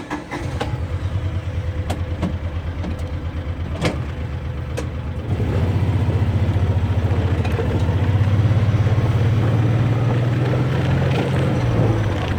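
A farm vehicle's engine starts and runs with a low, pulsing note. It picks up and gets louder about five seconds in as the vehicle pulls away, then eases off near the end.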